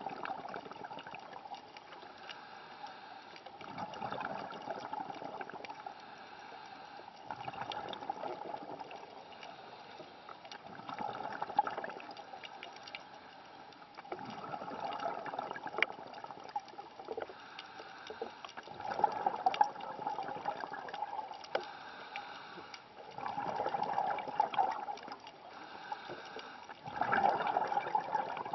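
Scuba diver's breathing heard underwater: exhaled air bubbling out of the regulator in bursts about every four seconds, with quieter stretches between.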